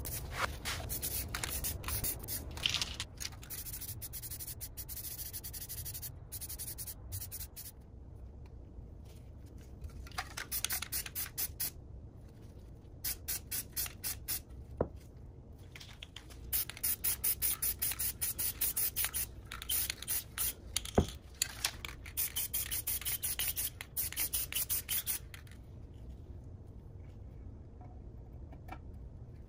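Aerosol spray-paint can hissing in a long continuous spray for the first several seconds, then a series of shorter hissing and rasping bursts, some coming in quick rhythmic runs. A low steady hum lies underneath throughout.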